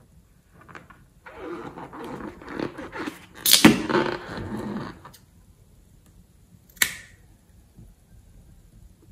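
A liquid-filled rubber balloon being gripped and tilted over a bowl: a few seconds of rubber rubbing and handling noise, with a sharp snap in the middle of it and another sharp click a few seconds later.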